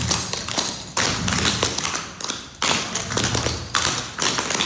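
Dance shoe taps striking the floor in fast footwork, heard as several quick phrases of rapid tapping about a second long with short gaps between them: the stomp, toe, heel and block steps of a 'crimp Burton' sequence.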